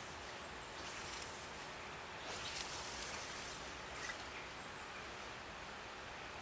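Quiet riverside outdoor ambience: a steady soft hiss, with a few brief rustles about one, two and a half, and four seconds in.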